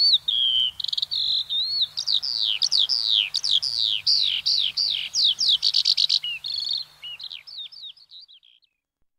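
Skylark singing a fast, unbroken run of varied chirps and sweeping whistles with a brief rapid trill about five and a half seconds in, fading out over the last couple of seconds.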